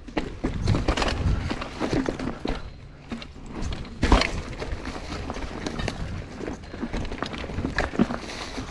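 Mountain bike riding over dry leaf litter and rock on a technical trail: tyres crunching through leaves, the bike rattling, and repeated knocks from rocks. The loudest is a sharp thump about four seconds in.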